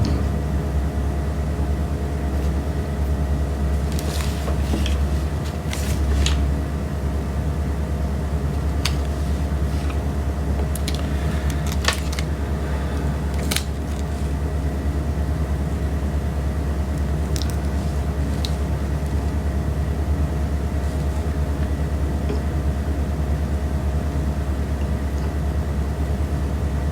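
Steady low rumble and hum with a few faint steady tones, broken by scattered light clicks and taps.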